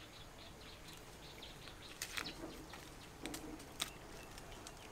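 Faint forest ambience with light bird chirps, and a few short scrapes and rustles from a person climbing a tree, with hands and feet on the bark and among the leaves, about two seconds in and again a little past three seconds.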